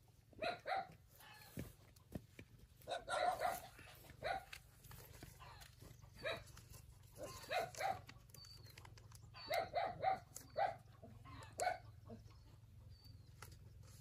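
A dog barking repeatedly, in short clusters of two or three barks every couple of seconds.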